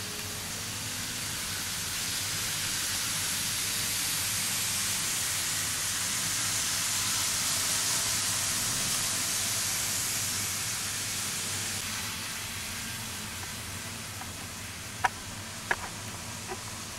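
N-gauge model train, an electric locomotive hauling passenger coaches, rolling along the track with a steady hissing running noise that swells as the coaches pass close by and then fades. A few sharp clicks near the end.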